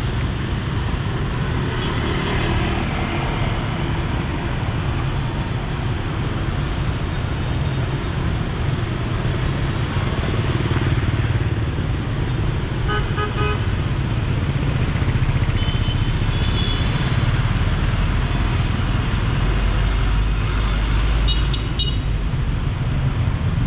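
Busy street traffic of motorbikes and cars running past, with short horn beeps several times: about halfway through, again a few seconds later and near the end. A deep engine rumble swells as a vehicle passes close a little before the last horns.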